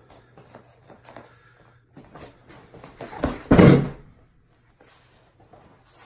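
A person thrown in a judo shoulder throw (ippon seoi nage) landing on the mat: one loud thud about three and a half seconds in. Soft shuffling of bare feet and judo uniforms comes before it.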